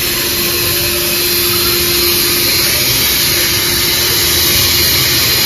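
Aerosol can of refrigerant spray hissing steadily as it is sprayed onto a refrigerator thermostat's capillary tail, chilling it so that the thermostat will cut out.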